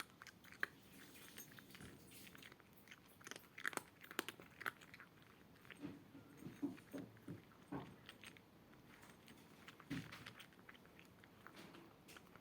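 Maine Coon cat chewing and crunching its food, heard as faint, irregular crunches and clicks.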